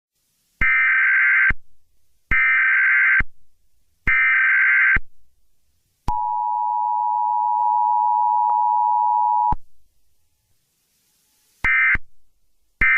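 Emergency Alert System header: three data bursts of about a second each, then the two-tone EAS attention signal held for about three and a half seconds, then shorter data bursts near the end.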